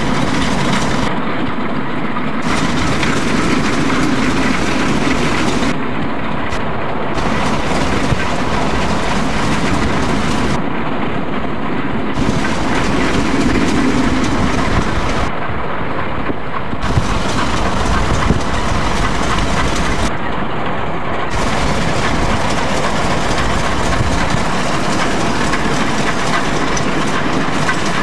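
Steady rumble and rush of a WAGR Pm-class steam locomotive, Pm706, running at speed with its train, heard from a vehicle pacing alongside with wind and road noise mixed in.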